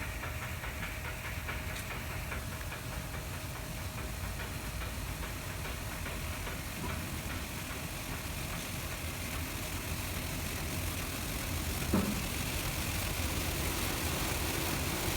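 Train-wash machinery running steadily: a constant low rumble and hum with a hiss. Fine regular ticking comes in the first couple of seconds, a single knock comes about twelve seconds in, and the noise grows a little louder near the end.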